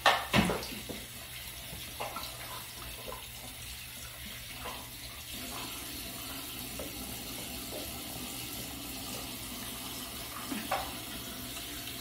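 Water running steadily from a bathroom sink faucet into the basin, with hands wetted under the stream. A brief sharp sound just after the start is the loudest moment.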